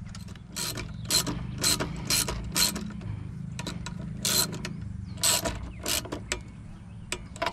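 Irregular sharp clicks and rattles of small parts being fitted by hand at a backpack leaf blower's carburetor and throttle linkage, over a steady low hum.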